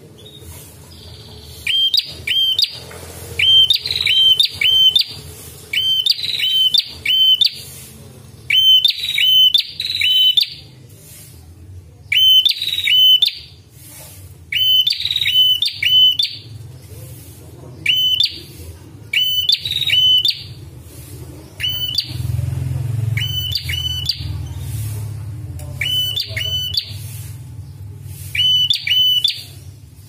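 Red-headed prenjak, a tailorbird, calling: quick groups of two or three sharp, hooked chirps, repeated every second or two. A low steady hum runs underneath and grows louder about two-thirds of the way through.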